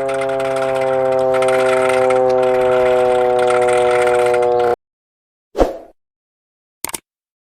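Secomak 447 siren sounding a steady tone, its pitch sagging slightly, then cutting off suddenly into silence. A short thump and a brief click follow.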